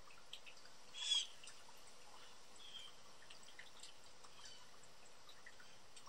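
A young blue jay gives one short, harsh call about a second in, followed by a couple of much fainter, shorter calls. Faint scattered ticks and chips sound in the background.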